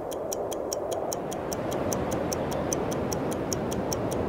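Background music with a fast, even ticking beat, about five ticks a second, over a steady hiss of surf.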